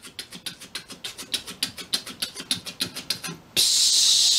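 Mouth-made imitation of a blood-pressure cuff's rubber bulb being squeezed to inflate the cuff: rapid rhythmic puffs of air, about seven a second. About three and a half seconds in, the puffs give way to a loud steady hiss of air.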